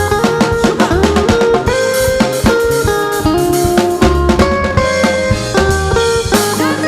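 Gospel band music without singing: drum kit keeping a busy beat under guitar and bass lines.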